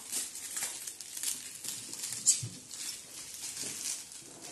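Plastic wrapping on a cardboard box rustling and crinkling in irregular bursts as it is picked at and pulled open, with one sharp crackle a little past halfway and a soft thump just after.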